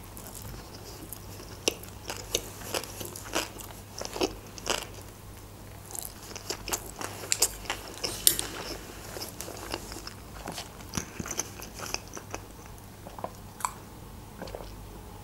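Close-miked chewing of a mouthful of sushi roll: irregular wet mouth smacks and sharp clicks, several a second at times.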